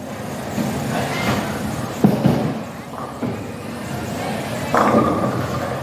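Bowling ball thudding onto the wooden lane and rumbling as it rolls, then a clatter of pins being struck near the end, over the general rumble and chatter of a busy bowling alley.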